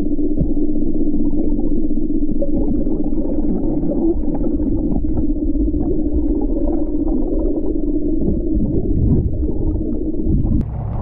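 Muffled underwater drone with a steady hum, as picked up by a submerged action camera beside a boat. Near the end the sound turns brighter and sharper as the camera comes up out of the water.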